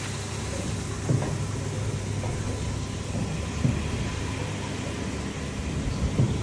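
Three-brush sugarcane washing machine running with cane going through it: a steady motor hum over water noise, with a few knocks about a second in, in the middle and near the end.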